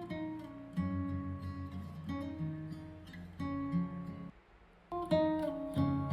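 Strummed acoustic guitar music played back through a portable Bluetooth speaker. The chords change every second or so, and the music breaks off briefly about four and a half seconds in, then comes back louder.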